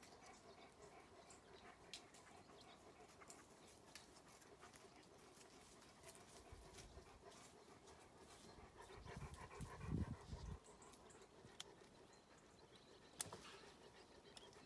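Mostly quiet, with dogs panting faintly, scattered light clicks, and a brief low rumble about ten seconds in.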